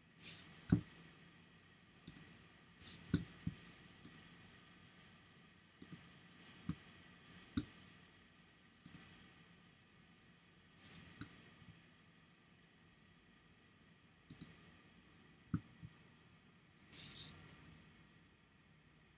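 Quiet computer-mouse clicks: over a dozen sharp clicks at irregular intervals, with a short rustle near the end.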